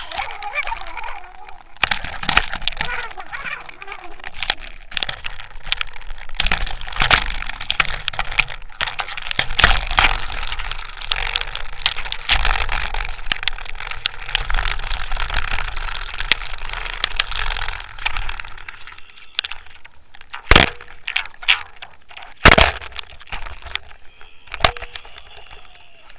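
Water splashing and sloshing with rattling knocks as a striped bass is brought to the surface and netted, heard through the housing of a line-mounted Waterwolf underwater camera. The water noise stops about nineteen seconds in, and three sharp knocks follow a couple of seconds apart.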